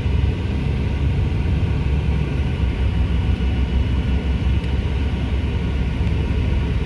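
Steady low rumble of tyre and engine noise heard inside the cabin of a moving car.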